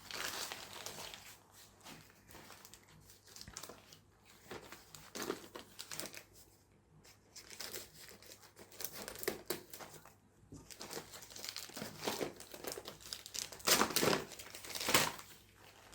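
Packaging being unwrapped by hand: irregular crinkling and tearing of wrapping in short bursts, loudest near the end.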